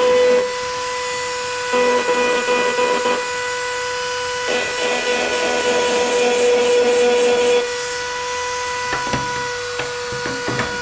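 Black & Decker RT18 rotary tool running steadily through its flexible shaft, a high whine, while its bit engraves a letter B into a box. The bit's grinding scrape on the box comes in two stretches, about two seconds in and again from about four and a half to seven and a half seconds, with a few light clicks near the end.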